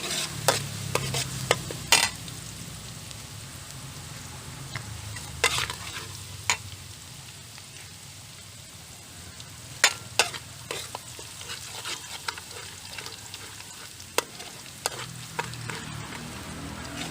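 Garlic frying in hot oil in a pan, sizzling steadily, while a spatula stirs it with sharp, irregular knocks and scrapes against the pan.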